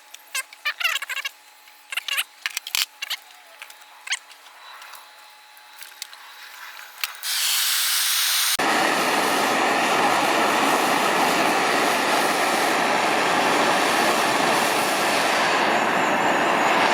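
Scattered clicks and taps of copper pipe fittings being handled, then a propane torch: the gas hisses on about seven seconds in, and a moment later the flame lights and burns with a loud, steady rushing noise.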